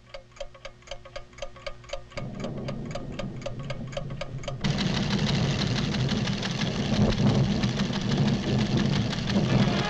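Steady mechanical ticking of the seismograph, about four ticks a second. About two seconds in a low rumble of the volcanic tremor starts under it, and a little before halfway it swells into a loud, deep rumble that covers the ticking.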